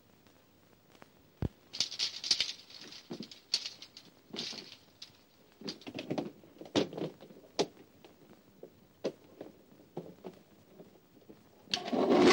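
Irregular rustling with scattered sharp clicks and light knocks, like things being handled or moved about. A loud, dense noise starts just before the end.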